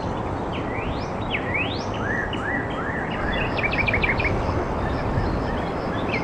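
Birds calling over a steady hiss of outdoor background noise: a few rising whistled sweeps, then a quick run of short chirps around the middle.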